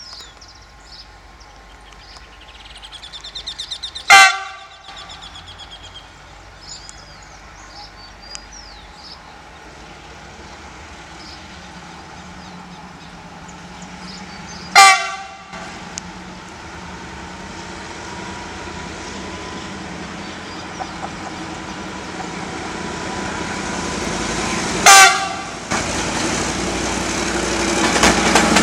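CRRC CDD5a1 diesel-electric locomotive sounding its horn in three short multi-tone blasts about ten seconds apart as it approaches. Its engine rumble grows steadily louder toward the end.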